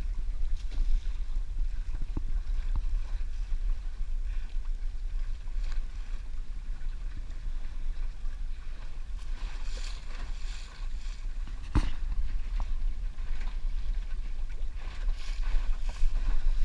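Wind buffeting the microphone as a low rumble over the hiss of choppy sea water around a small boat, with a single sharp knock about twelve seconds in.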